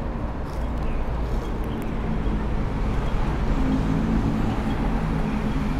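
Road traffic with a vehicle engine running steadily: a constant low rumble, and an engine hum that grows stronger about two seconds in.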